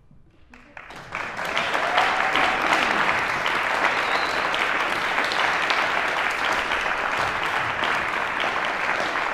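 Audience applauding: a few scattered claps about half a second in, building within a second into steady, dense applause.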